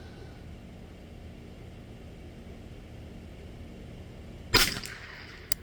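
A single .22 LR rifle shot from a Derya TM22 semi-automatic, a sharp crack with a short echo about four and a half seconds in, followed about a second later by a brief sharp click.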